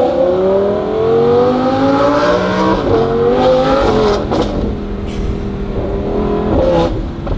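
Audi R8 GT's V10, fitted with equal-length headers and a titanium exhaust, accelerating hard, its pitch rising through a gear before dropping at an upshift about three seconds in. Short sharp cracks come at the shifts, around three seconds in, again near four and a half seconds and near the end, as heard from inside the cabin.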